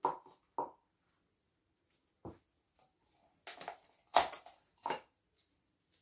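A series of short knocks and clatters from plastic containers and tools being picked up and set down on a work table, about half a dozen in all, the loudest a little after four seconds in.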